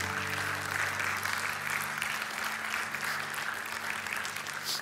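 Congregation applauding, a steady crackle of many hands clapping.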